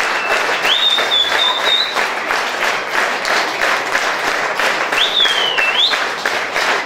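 Audience applause, the clapping falling into a steady even beat, with two high whistle-like tones over it.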